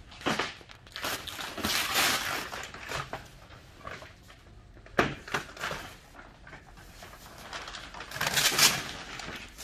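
Plastic shrink wrap being torn and pulled off a trailer body, crinkling and rustling in irregular bursts, with a sharp snap about five seconds in and the loudest tearing near the end.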